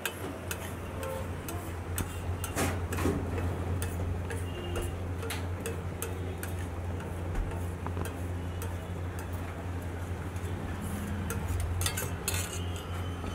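Metal spatula clicking and scraping on a large flat iron tawa as it works a thick masala, in sharp irregular strokes over a steady low hum.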